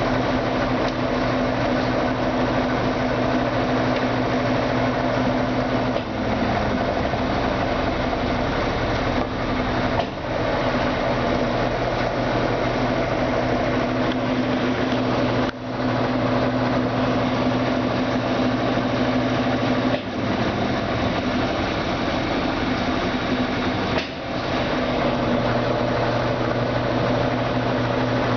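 Brastemp Ative! BWL11AR washing machine's motor running with a steady hum, dropping briefly about every four to five seconds and then picking up again.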